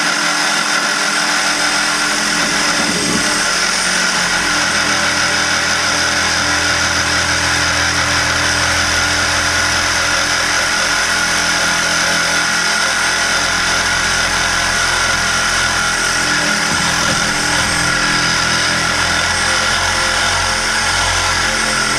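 Power tool cutting through an old cast iron sewer pipe, running steadily and without pause.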